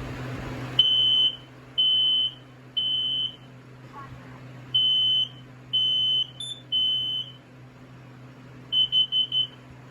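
Kidde smoke alarm sounding on test. It gives a high-pitched beep in the temporal-three evacuation pattern: three half-second beeps, a pause, then three more. Near the end comes a quick run of four short beeps.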